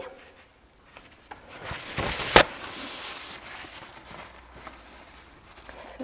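Rustling handling noise from makeup tools being handled, with one sharp knock about two and a half seconds in.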